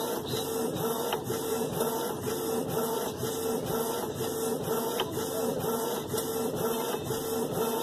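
Canon inkjet printer printing a full-colour sheet: the print-head carriage shuttles back and forth with a steady rhythmic whir while the paper feeds out.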